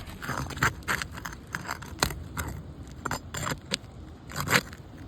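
Irregular scraping and sharp clicks of tools working on asphalt roof shingles, loosening a shingle to get at it for repair.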